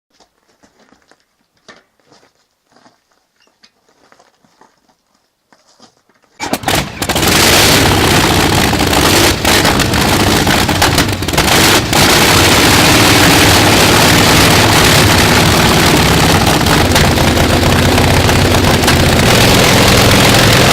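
Honda Monkey's single-cylinder four-stroke engine starting after a few faint clicks, running unevenly for several seconds, then settling into a steady idle, with an exhaust leak.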